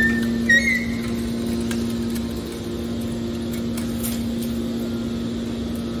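Hydraulic scrap metal baler running, its hydraulic pump and motor giving a steady hum, while a bale of pressed metal turnings is pushed out of the press chamber. There is a brief high squeal in the first second and a few faint clicks.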